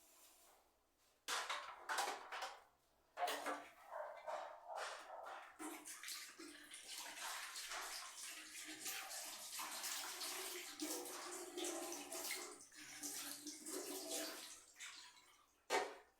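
Water running and splashing from a tap in short spells, then more steadily, as things are washed under it. A brief sharp sound comes near the end.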